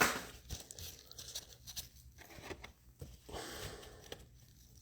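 Faint crinkling, tearing and small plastic clicks as a fresh pack of plastic top loaders is ripped open and handled.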